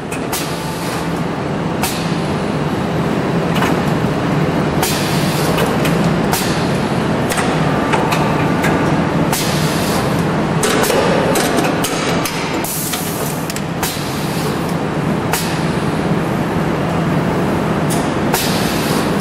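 Ormac VTS pneumatic shoe lasting machine running: a steady hum with frequent sharp clacks and short hisses of air as its pneumatic cylinders and pincers work the upper over the last.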